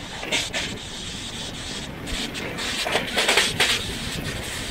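Passenger train running: a steady rumble of wheels on the track, with a short hissing rush near the start and a louder spell of rattling hiss from about halfway to near the end.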